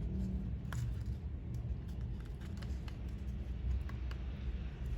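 Hands handling small laptop drive parts: a few faint, scattered light clicks and taps over a steady low hum.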